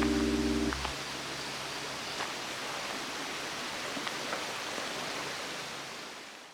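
Steady rushing of a stream, with a few faint clicks over it. Piano music ends in the first second, and the water sound fades out at the end.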